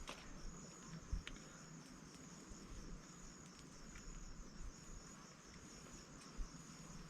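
Insects chirping in a steady, evenly pulsing high trill. A few faint knocks come near the start, about a second in, and again near the end.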